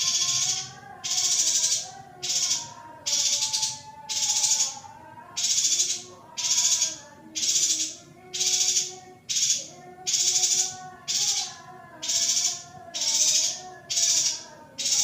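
Looped recording of a female yuhina's calls: high, hissy chattering bursts repeating about once a second, alternating shorter and longer, over a lower wavering melody.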